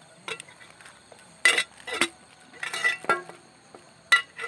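Cooking utensils clinking and knocking, about five sharp strikes spread unevenly, with a longer, rougher rattle just before three seconds in.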